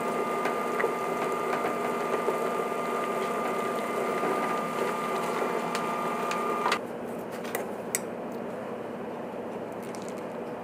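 Steady mechanical hum with a steady high whine, with light metallic clicks from a ladle working in a stainless stockpot of soup. About seven seconds in, the hum and whine drop away to a quieter hiss.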